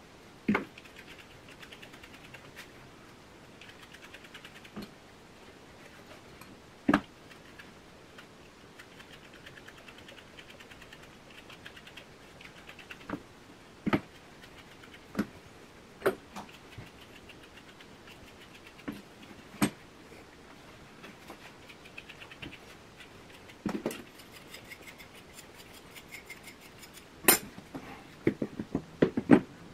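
A stripping tool and comb raked through a West Highland white terrier's wiry coat during hand-stripping: faint, rapid scratching in short spells. Scattered sharp clicks and knocks sound over it, several close together near the end.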